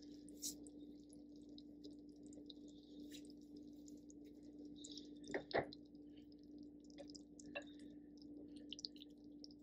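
Quiet kitchen room tone with a steady low hum and faint scattered crackles and ticks. About five and a half seconds in, two sharp knocks in quick succession as a serving spoon goes into a casserole dish of hot baked beans.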